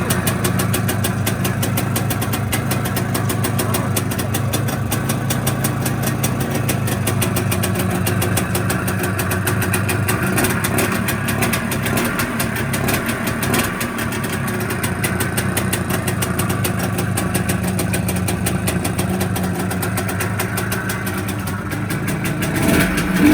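IZh Planeta Sport motorcycle's single-cylinder two-stroke engine running steadily at idle on its first run after a small repair, with a short rise in revs near the end.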